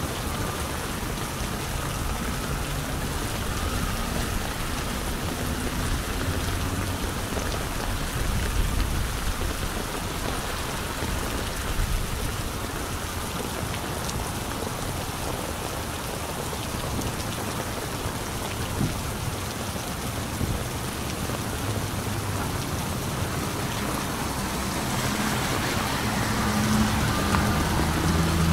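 Steady heavy rain pattering on an umbrella overhead and on wet pavement, with car tyres swishing on the flooded street and the sound building slightly near the end.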